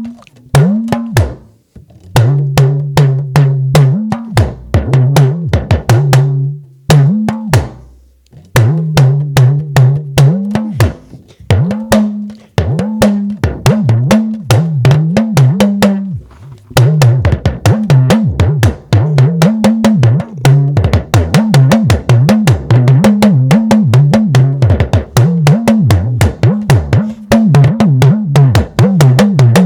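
Yoruba talking drum (dùndún) played with a stick in a fast run of strokes, the pitch of each note bending up and down as the drum's tension is squeezed and released. There are brief pauses about a second and a half and eight seconds in, and the strokes grow denser from about halfway through.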